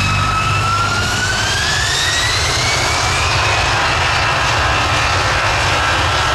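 Jet airliner's turbofan engines spooling up. The whine climbs in pitch over the first few seconds, then holds steady over a loud, even rush of engine noise.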